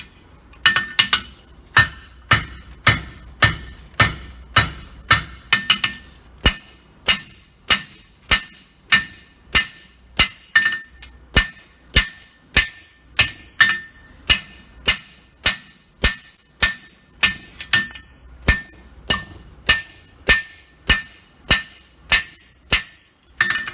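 Hand hammer striking a hot steel horseshoe on an anvil in a steady rhythm of about two blows a second, each blow followed by a bright metallic ring, as the farrier draws out the egg section of an egg bar shoe.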